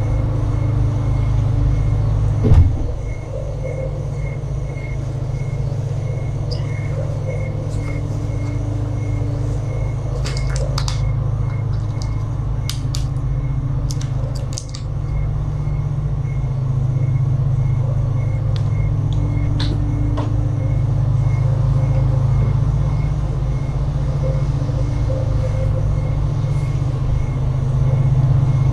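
Steady low hum, like a fan or ventilation running, with one sharp knock about two and a half seconds in and a few faint clicks in the middle. A faint high pulse repeats evenly throughout.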